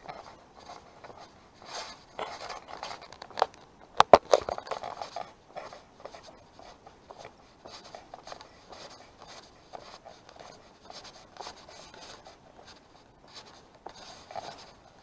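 Close rubbing and scraping noise from a handheld camera being carried on a walk, made up of irregular short scratches with a cluster of sharp clicks about four seconds in.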